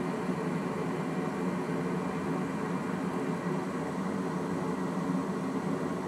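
Gas furnace running with its draft inducer motor on and the burners lit: a steady, even rushing hum with no change.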